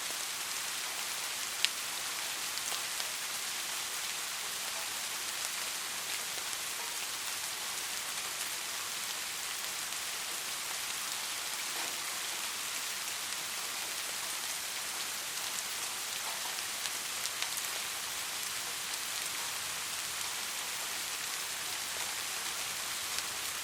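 Steady soft rain falling on a surface, an even hiss with scattered individual drops ticking, one sharper drop tick about one and a half seconds in.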